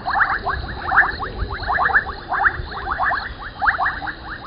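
A chorus of frogs calling at a waterhole, with runs of rapid, clicking chirps that overlap without a break, over a faint steady high insect drone.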